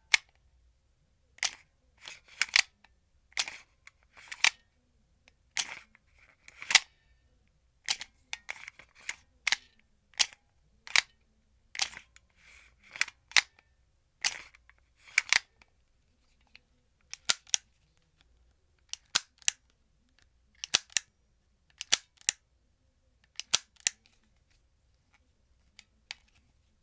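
Marushin M9 heavy-weight model pistol, a Beretta 92 replica, being handled: sharp metallic clacks and clicks of the slide being worked and the magazine being pulled out and pushed back in. The clicks come in pairs or short clusters about once a second and thin out near the end.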